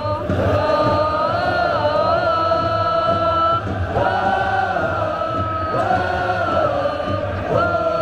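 A large crowd of Urawa Reds football supporters singing a chant in unison, holding long notes that step from one pitch to the next.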